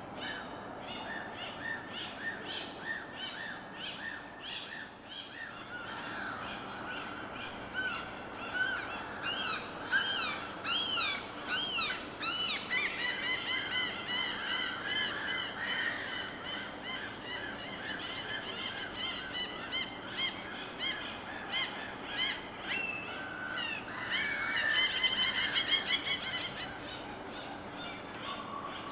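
Several birds calling over a soft, steady wash of water, with overlapping quick series of short notes and a louder burst of calls near the end.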